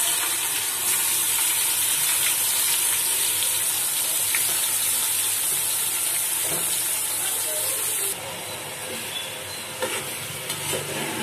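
Chopped onions sizzling in hot oil with whole spices in a steel pot: a loud, steady hiss that eases somewhat about eight seconds in as the oil cools under the onions.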